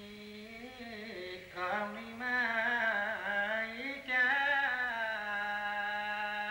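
Solo singing: a long, ornamented melodic line with wavering, gliding pitch over a steady held low drone note, growing louder about a second and a half in and again near the middle.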